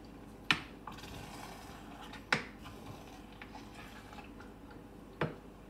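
Three sharp knocks of a spoon against a cooking pot, about two seconds apart, as the risotto is stirred.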